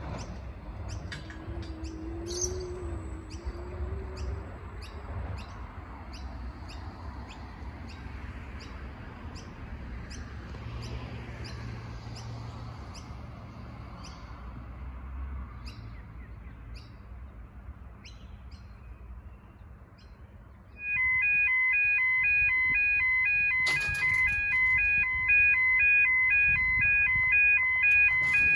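Low rumble of a distant Metro X'Trapolis electric train, with birds chirping over it. About three quarters of the way through, a much louder electronic warning alarm starts suddenly: several ringing tones pulsing on and off in an even rhythm.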